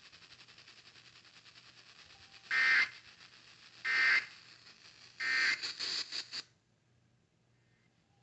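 Emergency Alert System end-of-message signal on a radio receiver: three short bursts of buzzing digital SAME data tones about a second apart, over steady radio hiss. The last burst runs longer with crackle, then the radio audio cuts off about six and a half seconds in. It marks the end of the severe thunderstorm warning broadcast.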